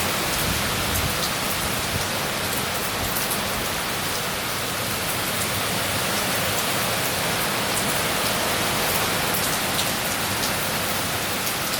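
Steady heavy rain from Hurricane Milton's approaching bands pouring onto surfaces, with scattered sharp taps of individual drops.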